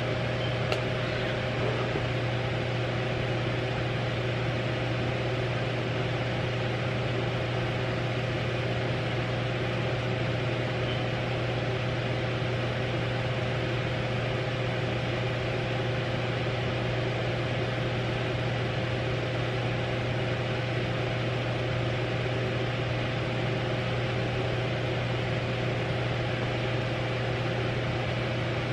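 Steady low hum with an even hiss over it, unchanging, like a fan or appliance running in a small room; a single faint click about a second in.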